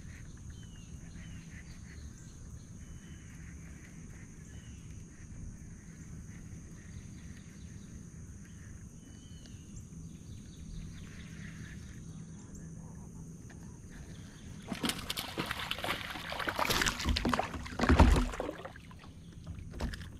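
Faint bird chirps over a quiet outdoor background while a hooked fish is played in. About fifteen seconds in, loud splashing and sloshing water as the fish thrashes at the surface while it is brought to the kayak.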